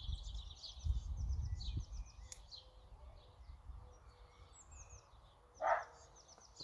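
Small songbirds chirping and twittering steadily, with a low rumble in the first two seconds and one short, louder sound about five and a half seconds in.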